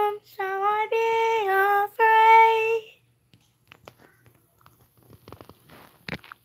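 A high voice singing unaccompanied, holding a few long notes that step up and back down, for about three seconds. Then the singing stops, leaving faint rustles and light knocks of the phone being handled, with a sharper knock just before the end.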